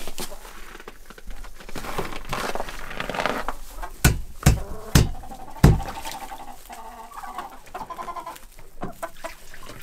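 Domestic hens clucking and calling, with four sharp knocks in quick succession about four seconds in.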